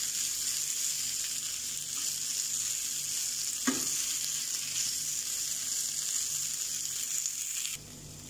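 Shredded chicken, capsicum and grated carrot sizzling in oil in a small frying pan while a metal spoon stirs them. There is one sharp tap about three and a half seconds in, and the sizzle cuts off suddenly near the end.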